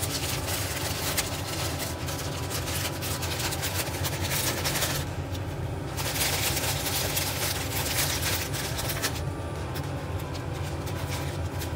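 Pot of salted water at a rolling boil, bubbling steadily with a low rumble and a crackling hiss. The hiss thins briefly about five seconds in and again from about nine seconds on.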